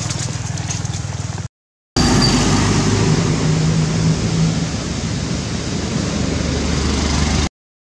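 Loud steady rumbling outdoor noise with no animal calls standing out, and a low hum about three seconds in. It cuts to dead silence briefly about a second and a half in, and again at the very end.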